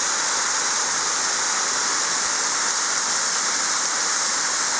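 Waterfall pouring down in a loud, steady rush of water that never changes.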